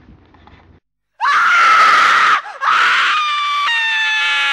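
A person screaming: a loud, high scream starts about a second in after a moment of dead silence. It breaks off briefly, then a second, longer scream slowly falls in pitch.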